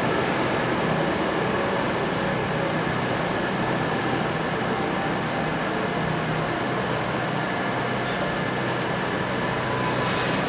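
Steady mechanical hum and hiss of a passenger train standing at the station, running without change.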